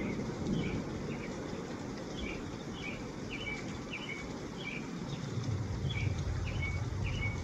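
The tail of a thunderclap dying away in the first second into a low rumble that swells again near the end. Over it, a bird chirps over and over, short high notes about one or two a second.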